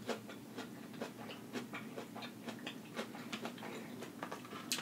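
Faint, irregular light clicks and taps from a cardboard-sleeved plastic food package being handled and turned over, a few a second, with a sharper click near the end.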